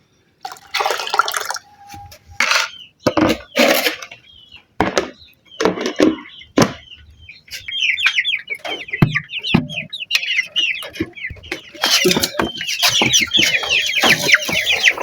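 A flock of caged chickens calling: many short high calls overlapping, starting about halfway through and growing denser toward the end. Before that there is a run of short knocks and rustles.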